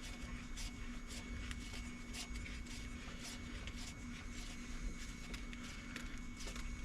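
Faint, irregular light clicks and ticks of metal parts being handled as the on-car brake lathe's mounting screw is spun into the hub adapter, over a steady faint hum.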